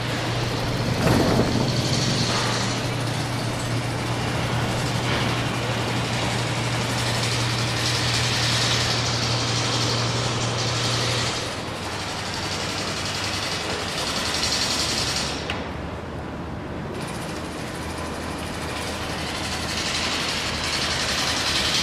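Rivet hammer generator running steadily, a constant low hum under a broad mechanical hiss. About eleven seconds in the hum drops to a lower pitch and the sound gets a little quieter. Around sixteen seconds in the hiss briefly thins out.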